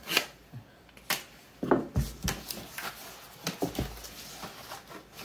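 A knife slitting open a cardboard comic-book mailer, then the stiff cardboard being handled. The sound is a string of separate sharp taps, scrapes and knocks.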